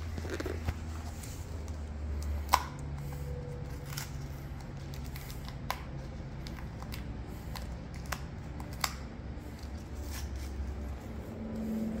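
Hard plastic toy capsule being twisted open by hand: its lid makes scattered sharp clicks, the loudest about two and a half seconds in, over a low steady rumble.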